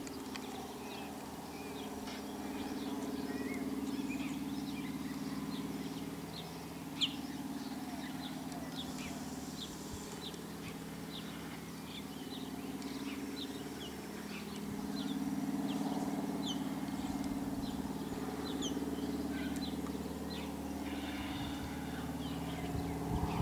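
A biplane's piston engine droning steadily, growing louder twice as it comes and goes, while small birds chirp over it again and again. A single sharp click about seven seconds in.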